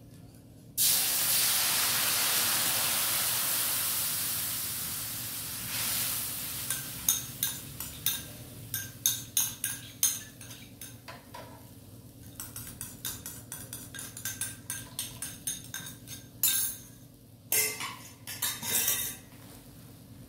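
Fish sauce, chili and sugar mixture poured into hot oil and fried garlic: a sudden loud sizzle about a second in that slowly fades over several seconds. Then a utensil scrapes and clinks against the pan as the sauce is stirred, with a few louder scrapes near the end.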